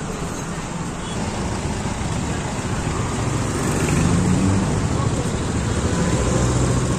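Street traffic: car engines running in a slow queue of vehicles, with people's voices mixed in. It grows a little louder about four seconds in.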